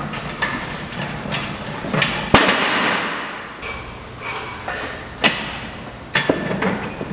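Loaded strongman yoke being carried: the steel frame and its bumper plates knock and clank with the steps, with one loud clanging impact about two and a half seconds in and a few sharper clanks near the end.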